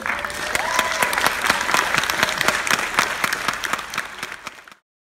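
Theatre audience applauding at the end of a dance performance: a dense burst of many hands clapping, with a pitched call rising in pitch about half a second in, cut off suddenly near the end.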